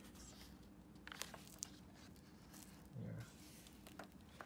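Faint paper rustle and soft ticks as the heavy pages of an old illustrated book are turned by hand, with a short low sound about three seconds in.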